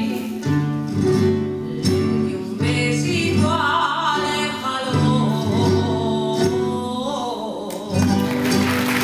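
A woman singing a folk song with a wavering vibrato, accompanied by a rondalla of bandurrias, lutes and guitars strumming and plucking chords.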